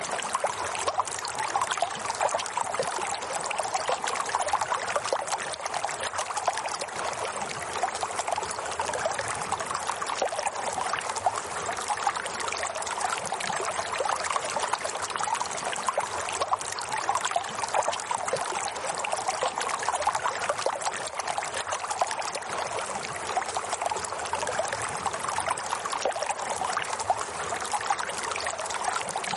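Running water trickling and splashing steadily without a break.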